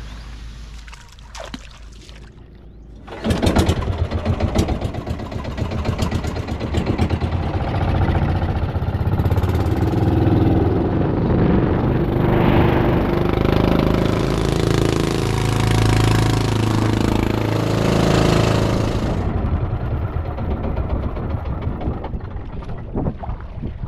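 Small boat engine starting about three seconds in and then running steadily.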